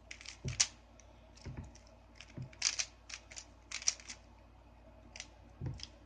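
Plastic Rubik's-style speed cube being turned during a solve: irregular clusters of sharp clicking and clacking as the layers snap round, in quick groups with short pauses between them.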